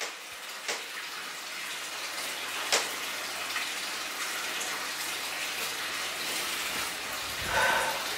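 Steady rushing hiss like running water, with a couple of faint clicks and a brief pitched sound near the end.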